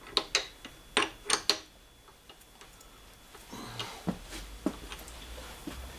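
Sharp metallic clicks and taps from hand-working a three-jaw chuck key and rotary table clamp on a milling machine. About five come in the first second and a half, and a few lighter ones come around four seconds in.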